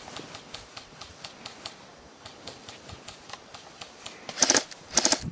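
Airsoft guns firing: scattered single shots clicking through the first four seconds, then two short rapid bursts about four and a half and five seconds in, the loudest sounds here.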